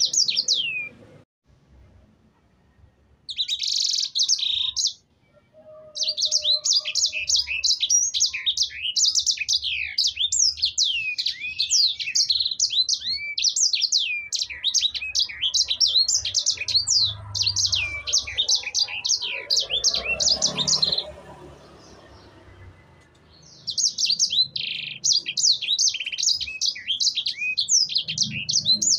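Sanger songbird singing in long, rapid runs of high chirps and quick down-slurred whistles. There are brief breaks about a second in and around five seconds, and a longer pause a little before the end. This is the full, continuous 'gacor' song used as a tutor recording to get other birds singing.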